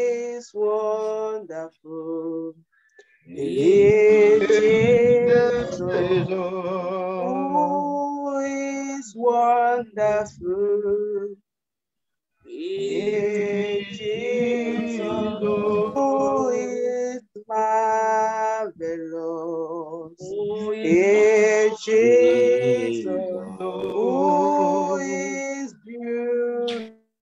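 Worship song sung by voices without instruments over a Zoom call, in phrases of held, wavering notes with short breaks between them; a woman's voice leads, with other voices overlapping at times.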